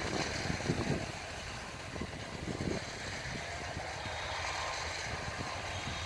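Yanmar AW82V combine harvester running at work, a steady low rumble with no distinct strokes or changes.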